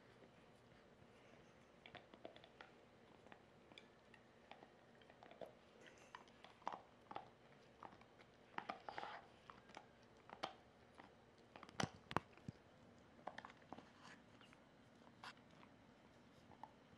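Golden retriever gnawing a chew bone: soft, irregular crunches and clicks of teeth on the bone, with two sharper cracks about twelve seconds in.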